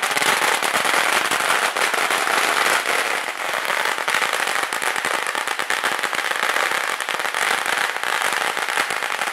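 Firecrackers exploding at close range in a rapid, unbroken crackle of loud bangs, like a long string of firecrackers going off.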